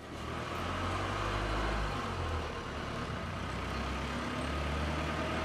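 A motor vehicle's engine running, a steady low rumble that starts suddenly and holds.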